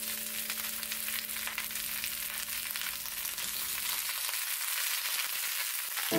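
Komatsuna (Japanese mustard spinach) stems and leaves sizzling as they stir-fry in a frying pan. A handful of leaves is added and tossed with chopsticks.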